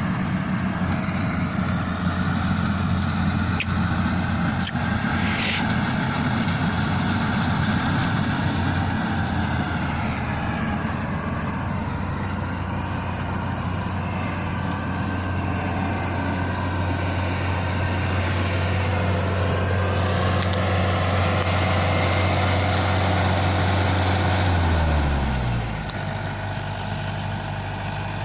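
Rice combine harvester's engine running steadily under load, with a brief hiss about five seconds in. Near the end its engine speed falls and it settles to a lower, quieter running.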